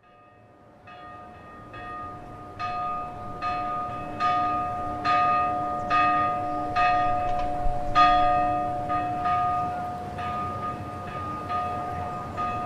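Church bell ringing with repeated strokes, roughly one every second, each stroke leaving a lingering hum. It fades in, grows louder toward the middle and eases off slightly near the end.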